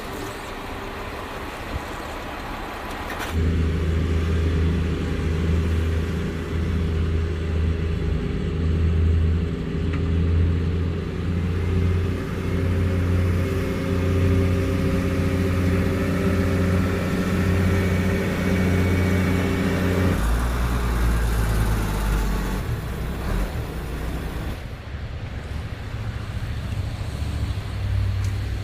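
Motor vehicle engine running with a steady low drone, broken by several abrupt changes in the sound about 3, 20 and 25 seconds in.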